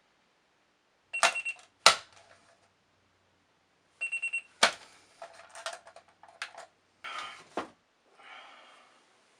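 Electronic alarm clock beeping in a quick run of about four high-pitched beeps, cut off by a loud thump. It beeps again about four seconds in and is cut off by another thump, followed by clattering and rustling.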